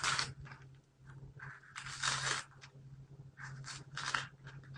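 Dry onion skin crackling and tearing as it is peeled off with a knife, in a series of short rustling tears.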